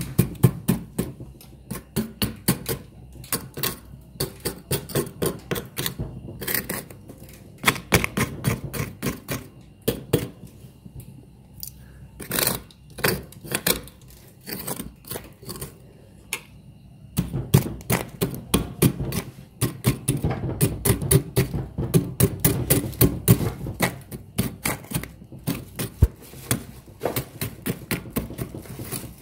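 Thick freezer frost crunching and crackling as fingers press into and break it, in quick irregular runs of crisp clicks.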